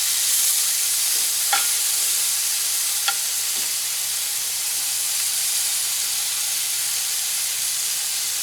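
Striped bass fillet sizzling steadily in oil in a frying pan, with two short clicks about one and a half and three seconds in.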